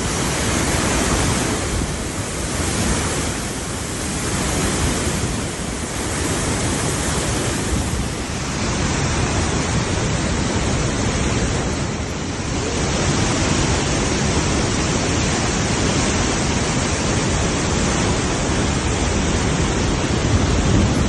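Waterfall swollen by the rainy season, its water rushing in a loud, steady stream that swells and eases slightly every couple of seconds.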